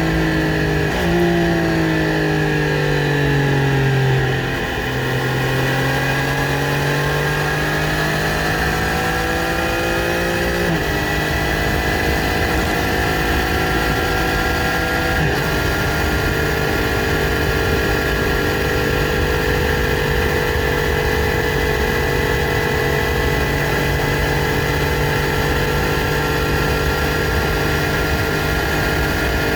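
Triumph Street Triple RS's 765 cc inline-three engine through its stock exhaust, riding along. For the first few seconds the engine note falls and steps between gears, then climbs gently for several seconds. It then holds an almost steady pitch through the rest.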